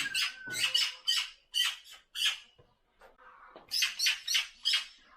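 Magpie giving a rapid series of harsh, rasping calls, with a short pause about halfway through.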